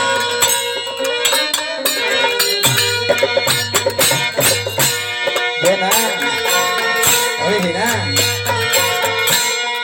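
Bhojpuri folk (nirgun) music played live: hand-drum strokes over sustained tones, with a wavering melody line entering about six seconds in.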